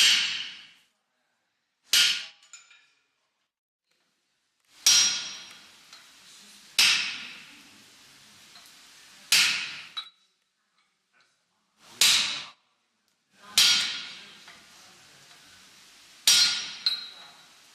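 Blacksmith's hammer striking iron on an anvil while forging: eight separate blows a couple of seconds apart, each with a bright metallic ring that fades out.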